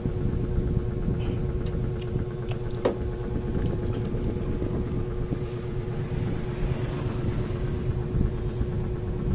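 A steady low mechanical rumble with a constant hum over it, and a few light clicks, the sharpest about three seconds in.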